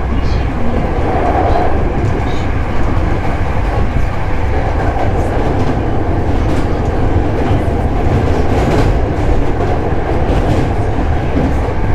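Hankyu 7000 series electric train running at steady speed, heard from inside the passenger car. The wheels rumble on the rails without letting up, with a few faint clicks here and there.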